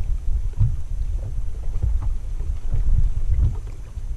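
Wind buffeting the camera microphone: a loud, uneven low rumble that swells and dips, with faint lapping of the rippled lake water.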